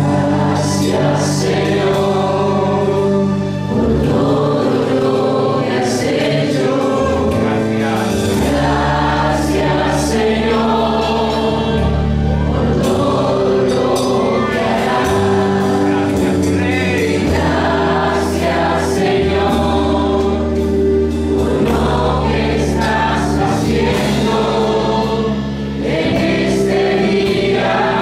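Christian worship music: several voices singing together over instrumental backing with held bass notes.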